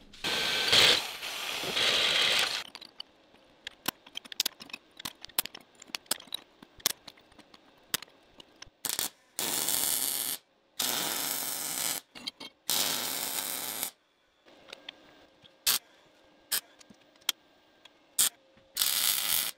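A corded hand drill boring into a steel tube for about two and a half seconds, followed by scattered sharp clicks and taps. Later come three short bursts of MIG welding crackle, each about a second long, and one more near the end.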